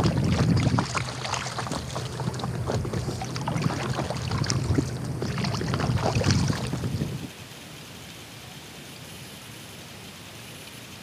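A push pole working a fishing kayak through shallow marsh water: splashes, drips and small knocks over a low rumble. About seven seconds in this stops, leaving a faint steady hiss.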